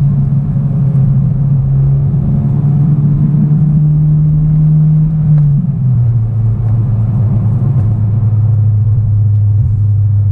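Honda Civic Type R FK8's turbocharged four-cylinder engine, breathing through a full 3-inch exhaust, droning steadily as heard from inside the cabin. Its note rises slowly under light acceleration, then a little past halfway it drops suddenly to a lower steady note, as on an upshift.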